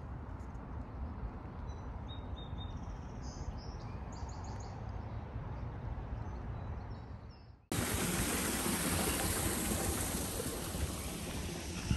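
Outdoor ambience: a steady low rumble with a few short bird chirps. About two-thirds in it cuts abruptly to a louder, even rushing noise.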